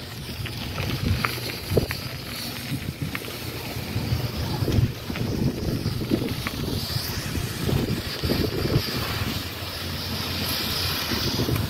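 Wind buffeting the microphone over the low rumble of a moving vehicle, with a few light knocks in the first few seconds.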